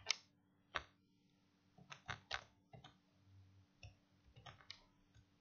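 Computer keyboard keys being typed: about nine or ten separate, faint keystrokes at an uneven pace.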